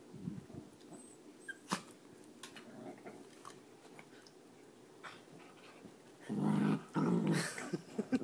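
Small dogs play-fighting: scattered scuffles, then from about six seconds in a dog growls loudly in several rough pulses, a dog getting mad at its playmate.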